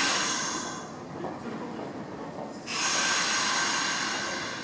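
Nishitetsu 5000 series electric train pulling slowly into the platform under braking, with two bursts of high hissing brake noise: a short one at the start and a longer one from about two and a half seconds in, over a low running rumble.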